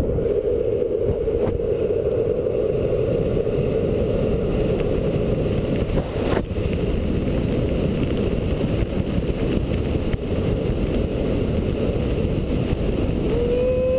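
Steady rushing road noise from riding fast down an asphalt road on a longboard: wheels rolling on the pavement and wind on the microphone, with a single short click about six seconds in.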